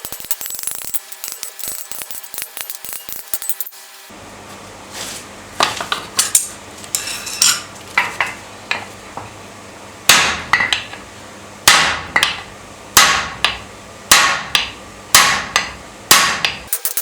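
Rapid light ticking for about four seconds, then a blacksmith's hand hammer striking steel on an anvil. The ringing blows come at uneven intervals and grow heavier and steadier, about one a second, in the second half. A steady low hum runs under the hammering.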